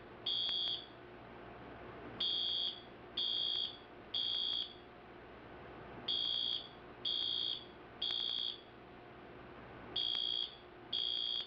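Wheelock MT multitone fire alarm horn sounding in a temporal-three pattern: three high half-second beeps about a second apart, then a pause, repeating. This is the standard evacuation signal.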